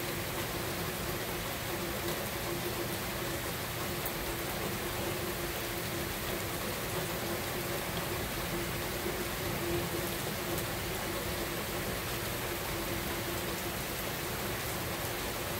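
Steady thunderstorm rain falling, an even hiss with no thunder in it, over a steady low hum.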